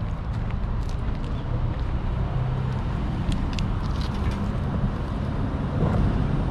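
Steady low rumble of distant road traffic. A few light taps about three to four seconds in come as the metal dish is set down on the asphalt path.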